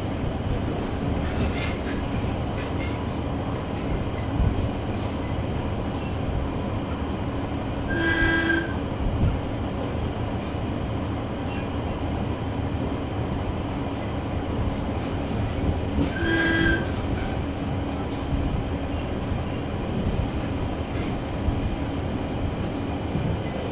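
Interior running sound of a KiHa 110-series diesel railcar at speed: a steady rumble of wheels on rail and the underfloor diesel engine, with a few scattered knocks. Twice, about eight seconds apart, a short bright tone sounds for under a second.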